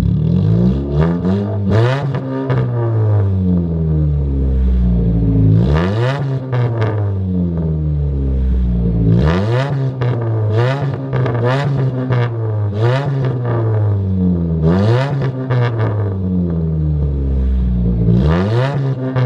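Dodge Avenger SXT's 2.4-litre four-cylinder engine revved repeatedly through a straight-pipe exhaust with only a resonator in place of the catalytic converter; each rev climbs quickly and then falls back slowly.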